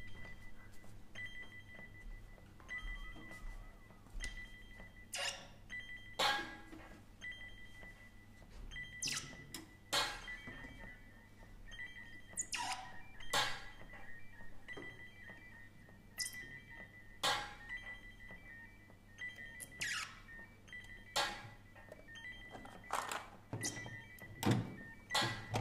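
Sparse experimental improvisation on drums and electronics: irregular sharp percussive strikes and scrapes, one every second or two, some falling in pitch, over a steady high electronic tone and a low hum.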